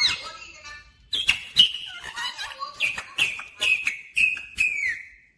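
Indian ringneck parakeet whistling: a brief gliding whistle, then after a short pause a run of short, falling whistled notes, about two a second, that stops near the end.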